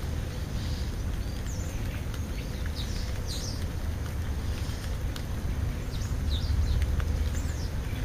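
Steady low rumble of wind on the microphone, with short, high, downward-sliding bird chirps scattered through it and a few faint clicks.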